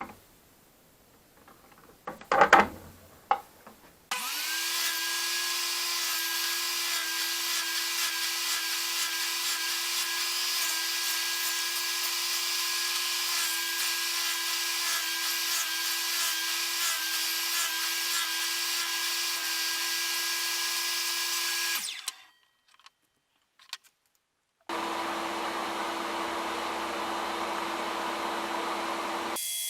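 An electric power tool's motor spins up and runs at a steady pitch for about eighteen seconds, then stops; after a short pause a power tool runs steadily again. A few loud knocks come just before the first run.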